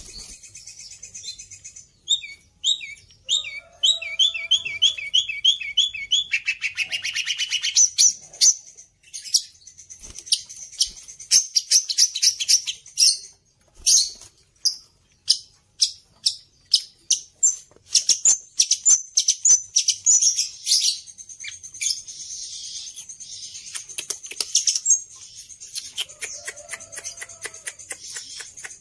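Caged long-tailed shrike singing a loud, varied song of high, sharp chirps and rapid trills, full of calls mimicked from other birds. The notes come in quick runs, with a fast trill early on and a harsher, buzzier stretch a little past the middle.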